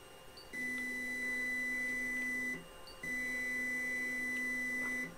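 Anycubic Mega Pro 3D printer sounding two steady electronic tones, each about two seconds long with a short pause between, as its touchscreen axis controls are pressed.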